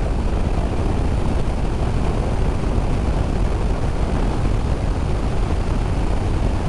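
Honda VFR800F's V4 engine running at a steady cruise, heard as a low drone under a steady rush of wind over the rider's microphone.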